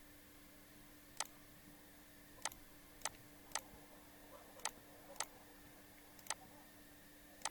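Computer mouse button clicking: about eight sharp, irregularly spaced clicks over a faint steady hum.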